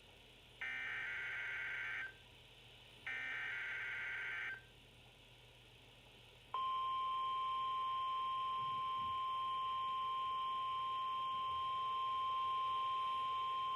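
NOAA Weather Radio alert signalling: two bursts of the SAME digital header, a harsh warbling data screech about a second and a half each with a short gap between them. About six and a half seconds in, the steady single-pitch 1050 Hz warning alarm tone starts and holds, announcing the watch that follows.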